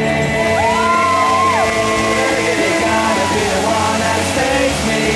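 Music playing while guests whoop and cheer about a second in, as a ring of Le Maitre indoor spark fountains lights up and sprays with a steady hiss.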